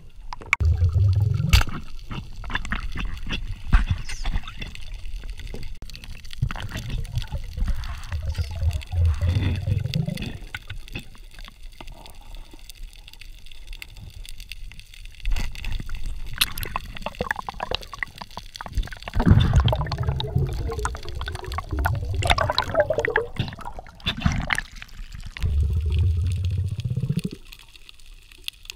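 Underwater sound through a camera housing: water gurgling and rushing around the camera in swells a second or two long, with scattered clicks and knocks.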